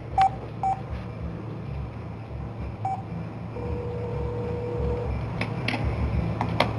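Cell phone on speakerphone placing a call: three short keypad beeps, then a single ringback tone lasting about a second and a half, then a few clicks as the phone is handled.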